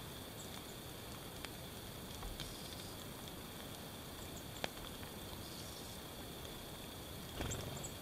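Quiet winter woodland ambience: a faint steady hiss broken by a few sharp single ticks, with a short low rustle near the end.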